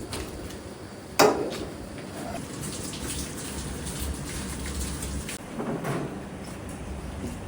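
A sharp knock about a second in, over a steady hiss, with a smaller clatter near the end.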